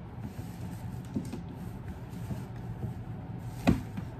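A motorcycle helmet being taken out of its fabric carrying bag: faint rustling and small knocks, with one sharp knock about three and a half seconds in, over a steady low hum.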